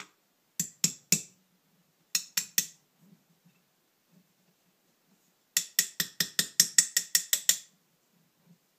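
Ratchet tool clicking in short runs, working the screws on a carburetor's air cutoff valve cover: three clicks, then three more, then a quicker run of about ten clicks.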